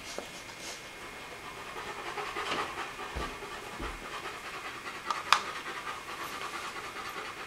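Man drawing on a tobacco pipe while lighting it with a match: repeated short breathy puffs. A single sharp click comes a little after five seconds in.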